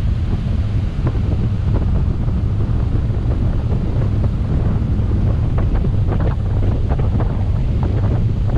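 Wind buffeting a microphone on the bow of a 1998 Sea Ray 330 Sundancer cruiser under way: a steady low rumble. Short splashes of water against the hull come now and then, more often in the second half.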